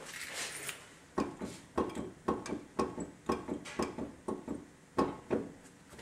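Front wheel of a 2006 Hummer H3 rocked back and forth by hand, clunking about three to four times a second as the hub shifts: the wheel bearing is badly worn, with a lot of play.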